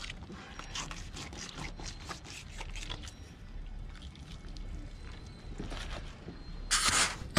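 Fillet knife cutting a fillet off a striped bass on a fish-cleaning table: irregular soft scraping and crackling strokes as the blade slices through skin and flesh. A short loud rush of noise comes near the end.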